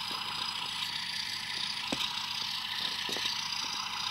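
Train-Tech SFX20 model-railway diesel sound unit playing its resting sound, a steady diesel engine idle through its small, tinny speaker: its motion sensor has been set off by the handling. A few light clicks come from the wagon being handled, about two and three seconds in.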